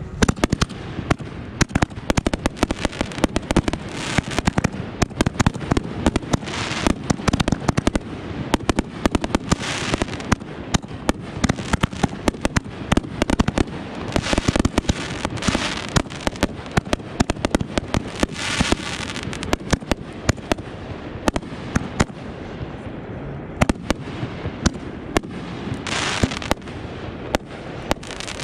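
Consumer aerial fireworks going off in quick succession, a dense run of sharp bangs and pops with several short stretches of hissing crackle.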